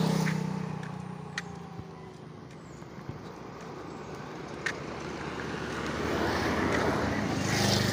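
Passing road traffic. An engine hum fades away just after the start, then a car approaches and passes close, its tyre and engine noise rising to a peak near the end.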